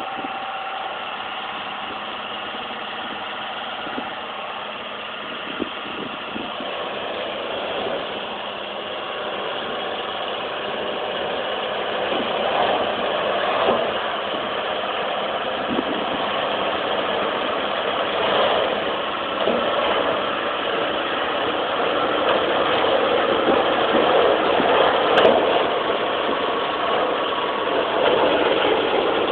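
Farm tractor engine running as it pulls a Jiffy bale shredder that is chopping a round bale, a steady mechanical din that grows louder as the rig comes closer.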